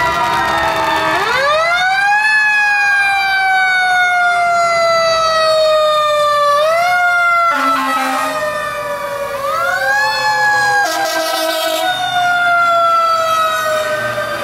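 Fire truck sirens in a passing parade. One siren winds up sharply and then falls slowly in pitch over several seconds. It cuts off partway through and winds up again, with other sirens overlapping at the start.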